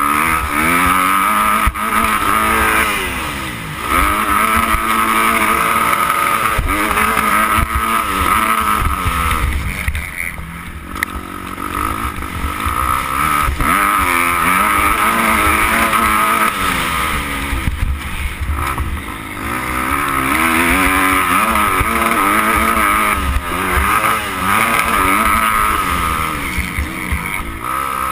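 Dirt bike engine under hard throttle, its revs climbing and dropping back again and again through the gears. It eases off briefly several times, most clearly about four, eleven and nineteen seconds in, over a rough low rumble.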